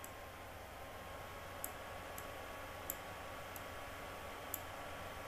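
Five faint, sharp computer mouse clicks at irregular intervals, over a steady low hiss and hum from the microphone.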